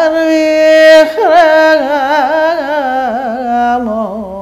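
A woman singing unaccompanied in the Uzbek classical maqom style: a long held note with wide vibrato, a short break about a second in, then an ornamented melismatic line winding slowly downward.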